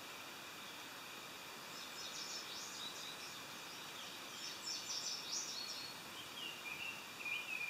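Songbirds singing in woodland over a steady hiss: quick high phrases about two seconds in and again midway, then lower short chirps near the end.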